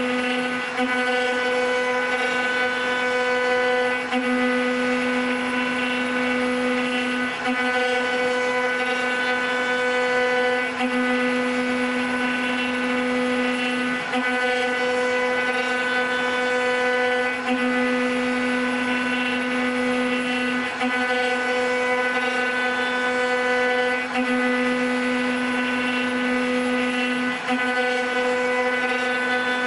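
Multi-spindle CNC wood router with a rotary axis, its spindles running with a steady high whine as the cutters carve spinning wooden balusters. The whine dips briefly about every three seconds.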